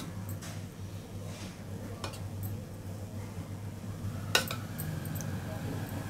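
Metal spoon clinking and scraping against a steel mixing bowl while batter is spooned over a skewer of pasta: a few separate clinks, the sharpest about four seconds in, over a steady low hum.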